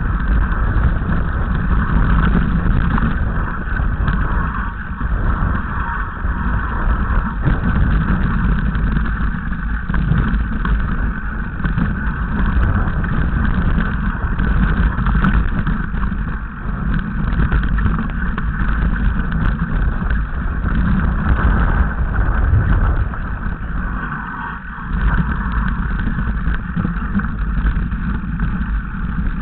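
Mountain bike descending a rocky, loose-stone downhill trail: heavy wind rumble on the microphone mixed with continual rattling and clatter of the bike and tyres over stones.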